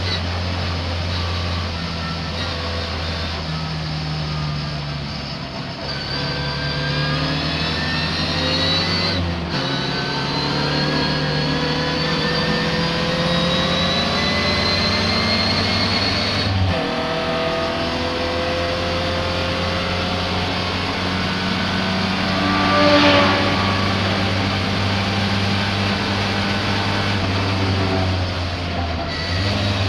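Racing car engine at full throttle, the revs climbing and dropping back at gear changes about nine and seventeen seconds in, with a brief louder burst about two-thirds of the way through. The engine is misfiring.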